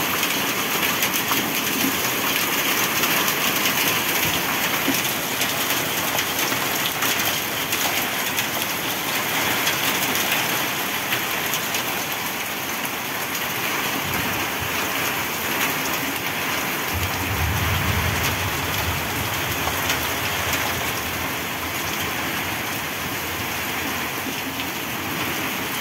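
Heavy rain mixed with centimetre-sized hail pelting the ground and yard clutter in a dense, steady downpour. A low rumble swells for a few seconds past the middle.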